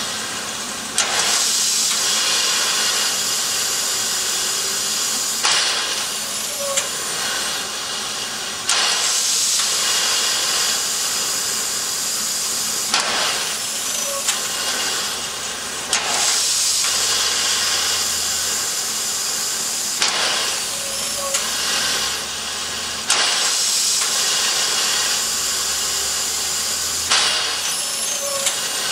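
Steam hissing hard as it vents from beneath the Beyer-Garratt steam locomotive 6029, a New South Wales AD60 class articulated engine. The hiss surges afresh with a sharp onset every three to four seconds.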